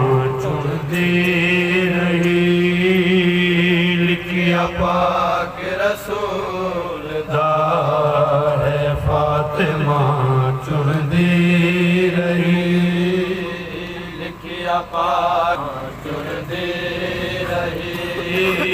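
A man's solo chanted recitation of a marsiya, a Shia elegy, sung into a handheld microphone. It comes in long held phrases of a few seconds each, with short breaks between them.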